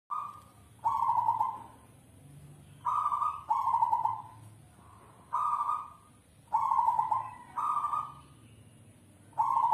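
Zebra dove (perkutut) singing: short, rapidly pulsed coos, mostly in pairs, repeated about every two seconds.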